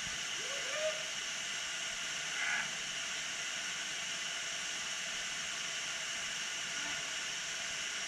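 Waterfall rushing with a steady hiss, with a faint short call about a second in.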